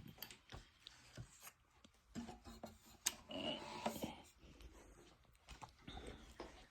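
Quiet, scattered clicks and brief rubbing or scraping sounds of small objects being handled on a table.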